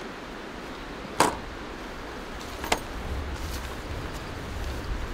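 Two sharp clicks about a second and a half apart, the first the louder, as camping gear is handled and set down on a folding camp table, over the steady rush of river water. A low rumble comes in during the second half.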